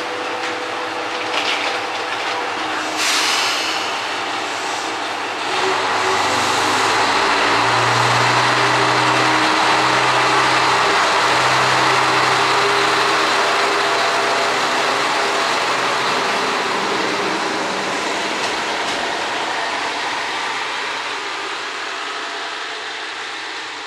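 Mizushima Rinkai Railway MRT300 diesel railcar departing: a couple of short hisses of air, then the diesel engine opens up about five seconds in and drives the railcar away, its note stepping up twice as it accelerates past, before fading as the car draws off into the distance.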